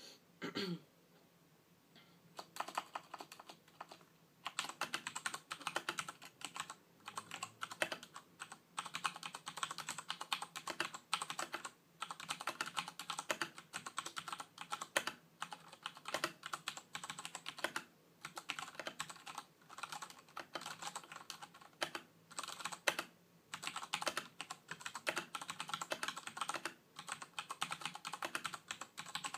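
Typing on a Razer BlackWidow Ultimate mechanical keyboard, its clicky key switches clattering in fast bursts with short pauses between them. The typing starts a couple of seconds in.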